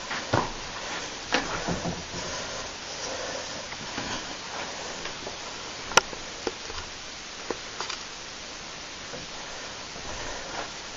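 Steady hiss with scattered soft knocks and ticks as a handheld camera is carried through an empty room, and one sharp click about six seconds in.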